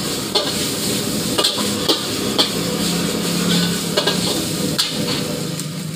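Flat rice noodles stir-frying in a steel wok: a steady sizzle, with several sharp clanks as a metal spatula strikes and scrapes the wok.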